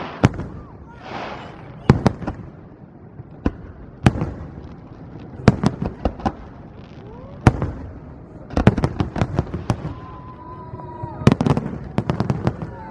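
Aerial fireworks display shells bursting with sharp bangs, one every second or two, then in quick crackling clusters over the last few seconds.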